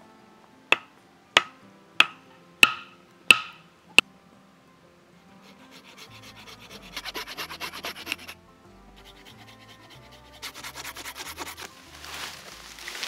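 Six sharp knocks of wood striking wood, evenly spaced about two-thirds of a second apart, each with a short ringing tail. Then come two runs of quick rasping strokes of a blade working a wooden pole, and near the end a rustle as a fallen branch is dragged through ferns.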